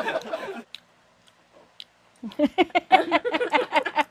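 Laughter: after a short lull, a quick run of rapid, evenly spaced 'ha-ha-ha' bursts begins about two seconds in.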